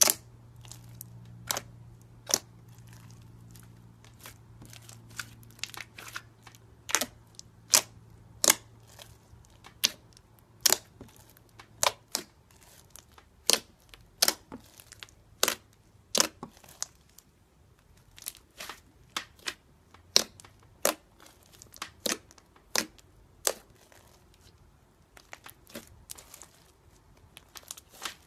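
Thick slime being poked, pressed and kneaded by hand, giving a run of sharp, irregular clicks and pops, about one or two a second.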